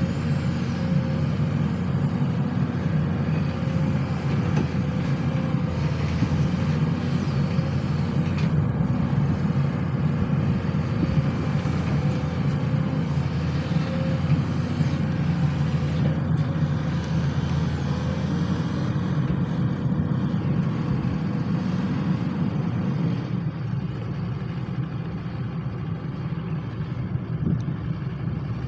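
Sany SY215C hydraulic excavator's diesel engine running steadily under working load, with a faint steady whine over the deep engine drone. The engine eases off slightly about three-quarters of the way through.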